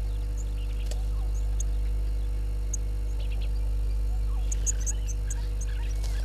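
Wild birds giving short high chirps, scattered at first, then a quick run of them about four and a half seconds in. Underneath runs a steady low electrical hum.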